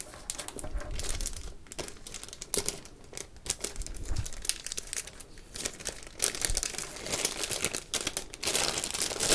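Thin clear plastic bag crinkling and crackling as fingers pick it open and crumple it, in quick irregular crackles, loudest near the end.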